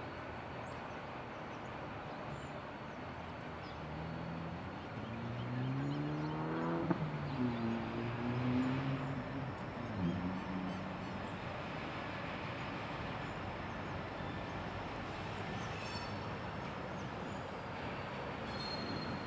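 Diesel locomotives of a slow-moving freight train, led by a V/Line P-class unit, running past with a steady rumble. Starting about four seconds in, the engine note rises in pitch for a few seconds as the locomotive throttles up, then a second engine note follows.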